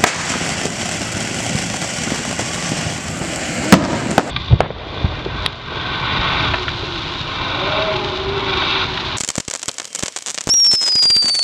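Consumer fireworks going off: a steady hissing, crackling spray broken by a few sharp bangs. From about nine seconds in there is a rapid run of crackling pops, and near the end a high whistle that falls slightly in pitch.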